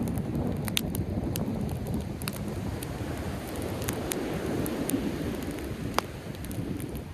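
Driftwood campfire crackling, with several sharp pops, over a steady low rush of sea waves and wind.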